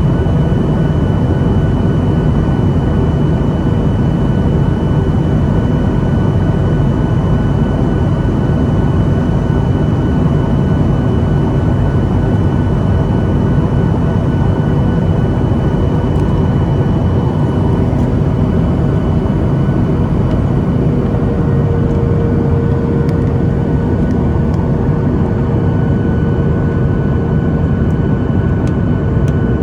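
Jet airliner engine noise, a steady rumble with a constant high whine, unchanging throughout.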